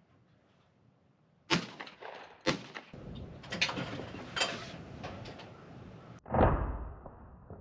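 Two sharp knocks about a second apart, then a run of smaller clicks and knocks, and a heavier, deeper thump near the end that is the loudest.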